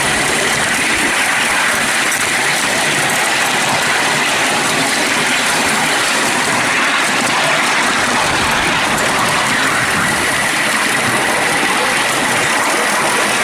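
A 5-inch gauge GWR 61XX class coal-fired live steam locomotive running along the track, heard as a steady rushing noise from its exhaust and its wheels on the rails, with a faint steady high tone.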